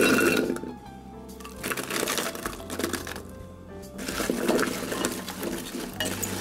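Cubed raw potatoes tumbling into a slow cooker's crock at the start, then a hand mixing raw chopped potatoes, onions, carrots and celery in the pot, the pieces rustling and knocking together in two spells. Background music with steady low notes plays throughout.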